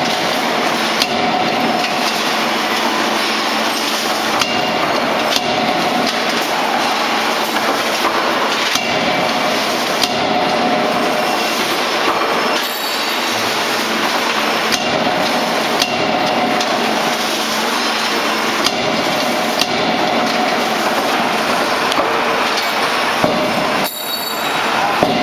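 Anyang 16 kJ CNC fully hydraulic die forging hammer striking hot steel in the die again and again while drop-forging diagonal plier blanks, the blows set in a loud, steady din of machine noise.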